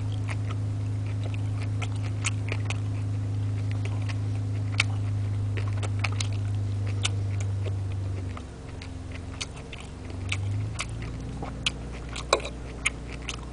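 Metal fork and plastic spoon scraping and clicking on a plate, with chewing, in scattered sharp ticks over a steady low machine hum. The hum drops about eight seconds in and shifts again near eleven seconds.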